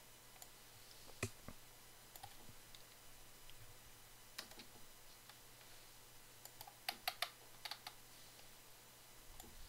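Faint, scattered clicks of a computer mouse and keyboard during code editing, with a quick run of about five clicks a little past the middle.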